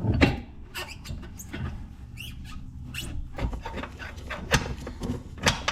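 Scattered clicks and metallic knocks of hand tools and suspension parts as a front control arm is being fitted, with a brief wavering squeak about two seconds in.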